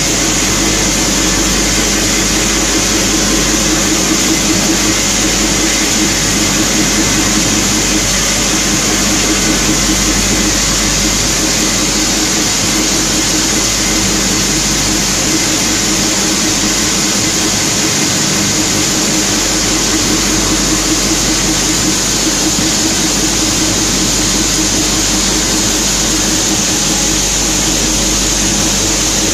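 Waste-plastic PP/PE separating machinery running steadily: a continuous, loud machine noise with a low hum and a high hiss, unchanging throughout.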